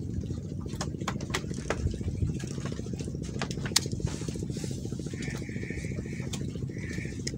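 An engine running steadily with a fast, even beat. There are a few sharp clicks and, about five and seven seconds in, two short high-pitched tones.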